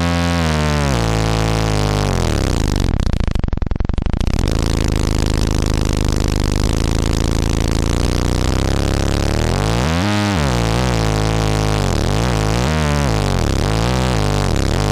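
Eurorack synth drone: a sine wave through a resonant analog low-pass filter into the Erica Fusion / Gamechanger Audio Plasma Drive distortion module, giving a dense, heavily distorted buzzing tone. Its overtones sweep up and down as the filter moves, with a rougher, rattling buzz about three to four seconds in.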